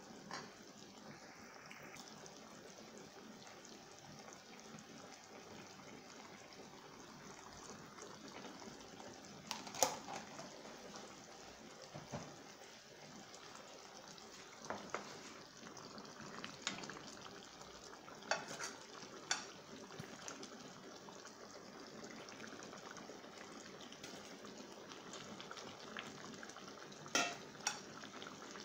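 Chicken stew sauce simmering in a frying pan, a steady bubbling hiss. A few sharp clinks of a spoon against the pan about ten seconds in, several more in the middle, and a double clink near the end as ingredients are added.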